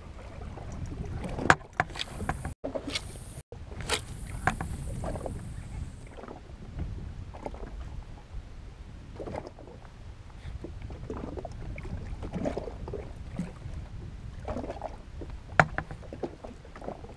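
Sea water lapping and slapping against the hull of a drifting Sea-Doo jet ski, over a steady low rumble. There is a sharp click about a second and a half in and another near the end, and a brief high hiss a couple of seconds in.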